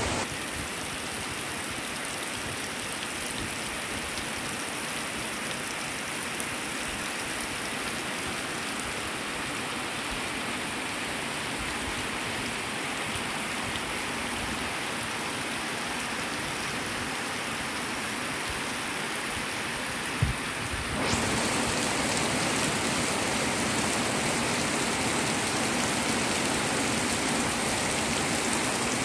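Steady rain falling on grass, trees and open ground: a continuous even hiss. About twenty seconds in there is a brief knock, and the rain then grows somewhat louder.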